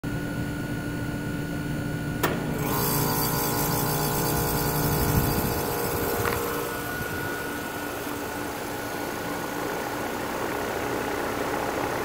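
2017 Carrier Comfort Series 2.5-ton heat pump outdoor unit starting up, which the owner says has a failing run capacitor. A sharp click about two seconds in as the contactor pulls in, then the compressor and condenser fan come up to a steady hum carrying several level tones. A second, smaller click comes about six seconds in.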